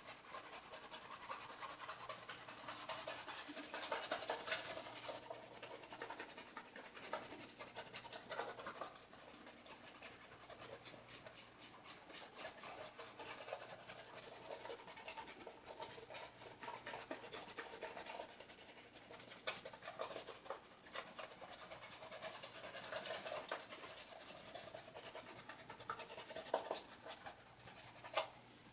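22 mm black synthetic shaving brush face-lathering soap on wet skin: a faint, continuous swishing and rubbing of bristles through the lather, made of quick repeated strokes.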